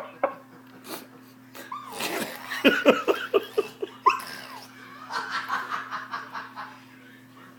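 A baby's vocal noises: a quick run of short laugh-like bursts, then a rising squeal, then softer breathy sounds.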